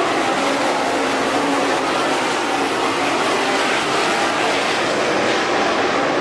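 Several dirt-track modified race cars running together at racing speed, their engines a loud, steady drone.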